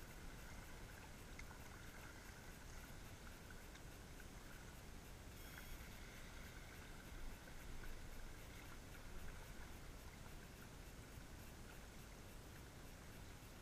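Faint, steady river ambience, a low rumble with a soft hiss, as a kayak is paddled past. A few slightly louder soft sounds come a little past the middle.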